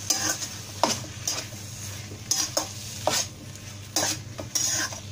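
Spatula stirring sliced mushrooms and masala in a kadai: irregular scrapes against the pan every half second to a second, over a steady sizzle of the frying mixture.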